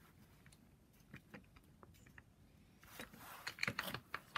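Light metallic clicks and rattles of bolts and tools being handled on an engine's cylinder head. The clicks are scattered and faint at first, then come thick and louder for about a second near the end.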